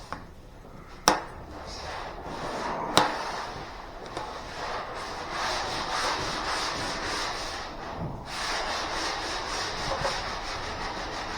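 Hand sanding on car bodywork: sandpaper rubbed over the panel in steady strokes, with a brief pause about eight seconds in. Two sharp clicks come in the first three seconds, before the sanding settles in.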